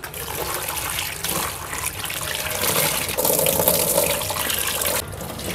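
Kitchen tap running into a stainless steel bowl in a steel sink as chillies, shallots and garlic are rinsed by hand. The water grows louder about halfway through and cuts off near the end.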